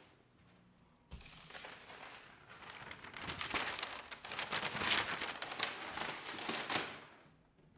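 Sheets of paper rustling and crinkling as they are handled and packed away, starting with a knock about a second in, growing louder from about three seconds in, and stopping near the end.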